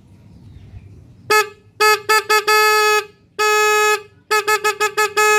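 Original 6-volt electric horn from a Yamaha Twin motorcycle, in working condition, honking loudly on one steady note. It starts about a second in with a few short beeps, then two longer blasts of about half a second each, then a quick run of short beeps.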